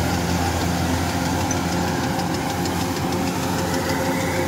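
Kubota rice combine harvester's engine running steadily under load as it cuts and threshes standing rice.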